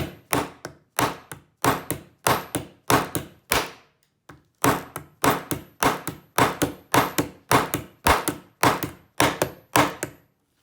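Hammer tapping a blade into the plastic body of a lockout-tagout padlock to cut the casing open: a steady run of sharp strikes, two to three a second, with a short pause about four seconds in.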